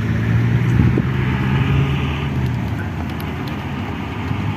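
A vehicle moving slowly over a rough paved path: a steady low hum with road and wind noise, the hum fading after about two and a half seconds.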